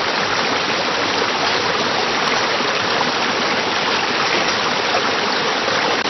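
Mountain stream rushing over rocks, a steady full water noise that starts and stops abruptly at cuts.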